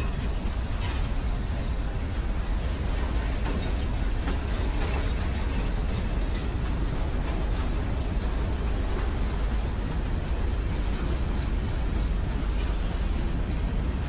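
Steady rumble and rail noise of a CSX freight train rolling past, with no horn sounding.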